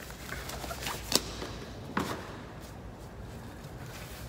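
Disposable gloves being pulled onto the hands: rustling with a few sharp snaps of the material, the loudest about a second in and another at about two seconds.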